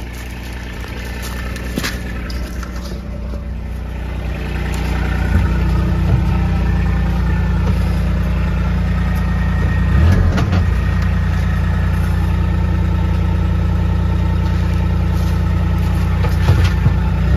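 Utility vehicle's engine idling steadily, heard from inside its cab. It grows louder about four seconds in, with a few knocks around ten seconds.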